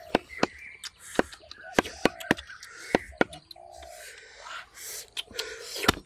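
Chopping: a series of irregular, sharp knocks, about a dozen, with short bird calls between them.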